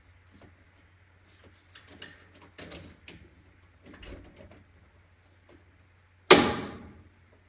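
Light clicks and knocks of parts being handled at the laser cutter, then one loud bang about six seconds in that rings briefly.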